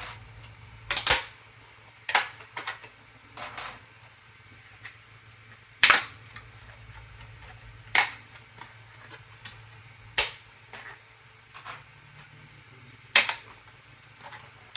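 3D-printed PLA pieces being snapped off their print rafts: a series of sharp cracks, about seven loud ones spaced irregularly every one to three seconds, with smaller clicks between.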